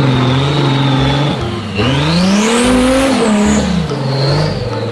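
Off-road 4x4's engine running steadily, then revving up about two seconds in and dropping back, with a high whine rising and falling along with it.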